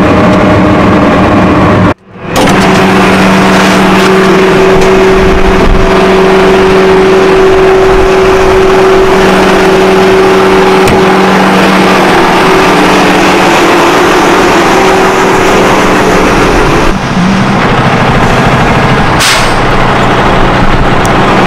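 Diesel engine of a Case IH 540 tractor running steadily, with a constant hum over a dense noise, briefly cutting out about two seconds in. About seventeen seconds in the sound changes to a truck engine idling over outdoor noise, with a short hiss near the end.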